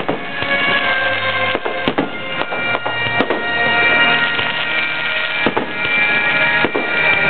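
Aerial firework shells bursting, several sharp bangs at irregular intervals, over music played through loudspeakers.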